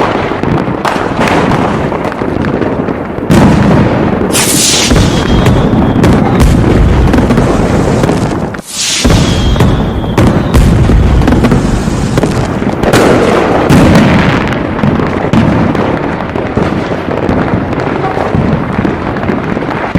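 Aerial fireworks bursting in a dense, continuous barrage of loud bangs and crackles, with a momentary lull about nine seconds in.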